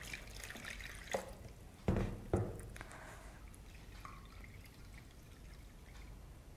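Water poured from a jug onto soaked wheat grains in a steel plate to rinse them, with two loud knocks about two seconds in. After that come faint drips.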